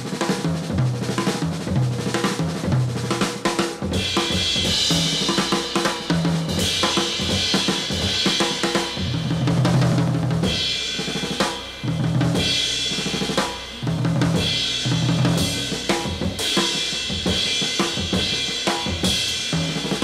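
Music track with a drum-kit beat of snare, bass drum, hi-hat and cymbals over a repeating bass line.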